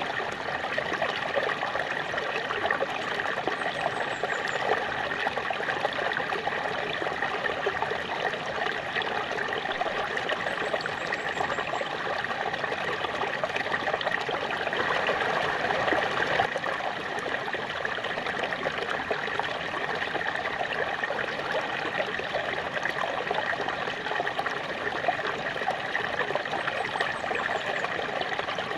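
Small waterfall splashing steadily, a continuous rush of water that swells slightly about halfway through.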